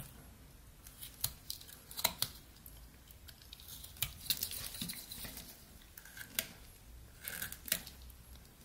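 Rough Rider pocket knife blade slicing small chips off a block of pine: a dozen or so short, crisp cuts at irregular intervals.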